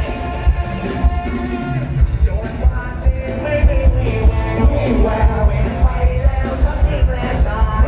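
Amplified music with a singing voice and a heavy, steady bass-drum beat, played loud through a PA sound system.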